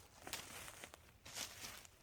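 Footsteps on the forest floor: a few soft, irregular crunches, the loudest near the middle and near the end.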